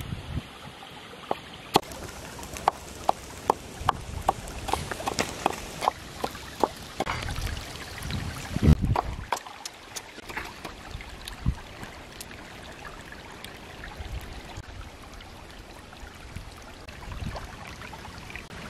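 Stream water trickling steadily over rocks, with irregular light clicks and knocks from shredded green mango being worked in a wooden bowl; the clicks come thickest in the first half, and there is a heavier thump about nine seconds in.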